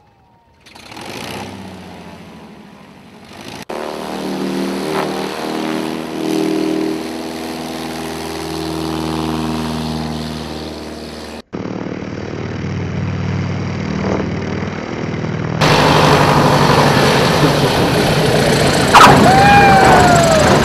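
Cub-type bush planes' piston engines running and changing power during landing and taxi runs, in several short clips with abrupt cuts between them. Near the end comes a sharp crack and a brief falling whistle-like tone.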